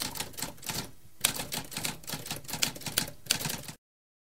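Typewriter typing: a rapid run of keystrokes with a short pause about a second in, stopping near the end.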